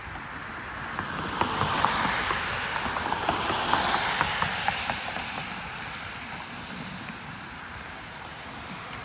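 An SUV driving past close by: the tyre and road hiss swells, peaks for a couple of seconds with small crackling ticks, then fades away.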